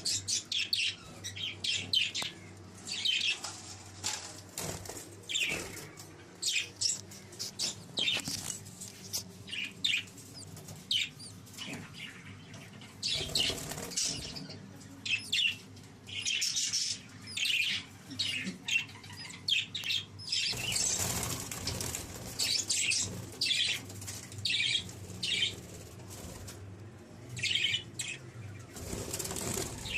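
A mixed flock of small pet parrots (budgies, lovebirds and cockatiels) chirping and calling in quick, sharp high notes, with bouts of wing flapping.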